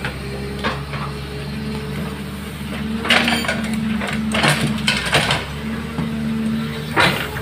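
Caterpillar hydraulic excavator's diesel engine running steadily. From about three seconds in, several bursts of soil and stones clatter into a steel dump-truck bed as the bucket dumps its load.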